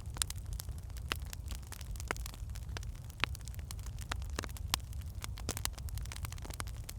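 Wood fire in a fireplace crackling: irregular sharp pops and snaps of burning logs over a steady low rumble of the flames.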